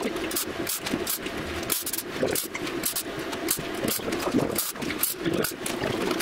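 Electric welding arc crackling in short, irregular bursts, as when tack-welding steel.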